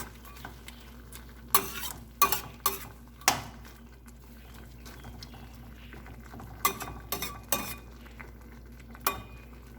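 A cooking utensil stirring chopped cabbage and cucumber in a pot, knocking against the pot in scattered sharp clacks, in two clusters. A soft sizzle runs underneath between the knocks.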